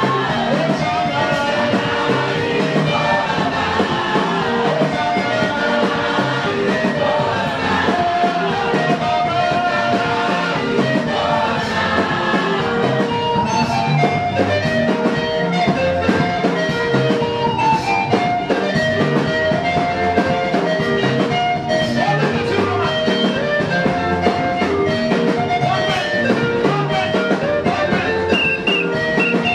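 Live church worship music: a man sings a lead melody into a microphone over an amplified band with a steady, driving beat.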